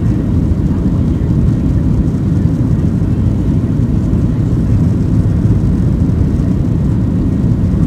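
Boeing 737-700's CFM56-7B jet engines at takeoff thrust, heard from inside the passenger cabin as a steady, deep rumble.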